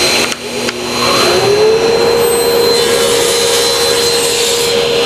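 Table saw running while cutting a tapered dovetail spline from a wood blank in a sled, blade tilted to 14 degrees. A few clicks come in the first second, then the whine rises in pitch as the blade comes back up to speed and holds steady.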